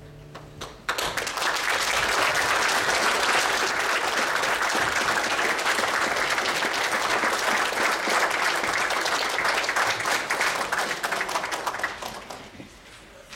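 Congregation applauding, starting about a second in as the last held notes of music end, and dying away near the end.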